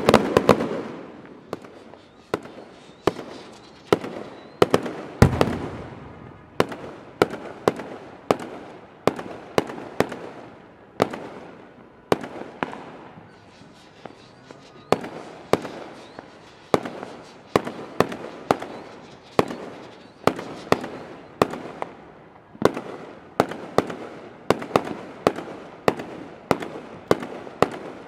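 Aerial fireworks shells bursting in a continuous barrage: sharp bangs at about one to two a second, irregularly spaced, each dying away in an echoing tail.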